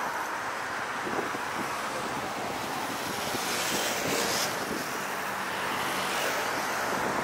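Busy city street ambience: a steady wash of traffic noise, with a brief hiss about four seconds in.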